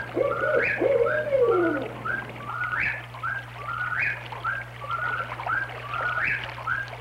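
Eastern whip-poor-will singing its repeated 'whip-poor-will' song, about one phrase a second. In the first two seconds it is joined by lower hooting calls that fall away, a barred owl.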